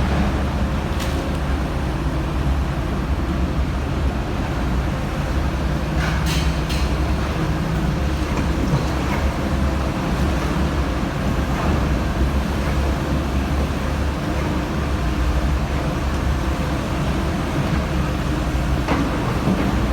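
Komatsu PC350-7 excavator's six-cylinder diesel engine running steadily, with a few brief knocks, two of them close together around six seconds in.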